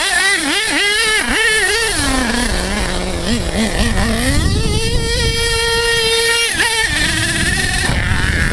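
HPI Savage XL 5.9 RC monster truck's small two-stroke nitro engine, revved up and down in quick blips, then dropping to low revs. About four seconds in it climbs to a steady high-pitched whine at full throttle, held for about two seconds, then cuts off sharply.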